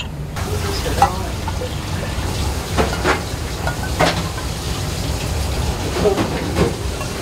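Wooden steamer box steaming hard: a steady hiss of steam over a low rumble, with a few light clinks and knocks of a ladle against porcelain cups.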